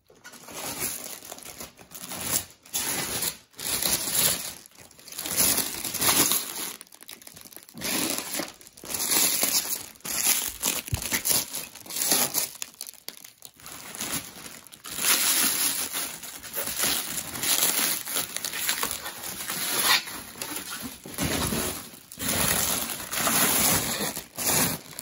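Packing material being unwrapped and handled: crinkling and rustling in irregular bursts with short pauses.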